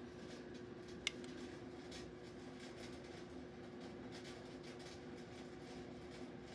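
One sharp click about a second in, a push button being pressed on a handheld RF vector impedance analyzer to switch its display, over a faint steady hum.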